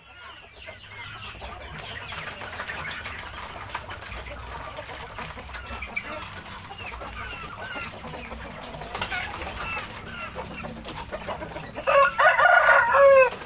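Flock of chickens clucking with many short calls as they crowd in to feed on scattered dry feed. A louder burst of calling comes near the end.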